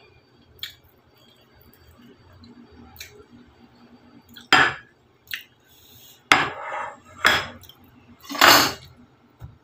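Ceramic plate clattering and scraping on a table, four times in the second half, loud and harsh, after a couple of faint clicks.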